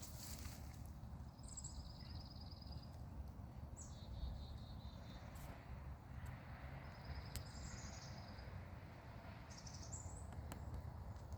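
A small songbird sings the same short song four times: each song is a high opening note followed by a fast, even trill lasting about a second. A faint low rumble runs underneath.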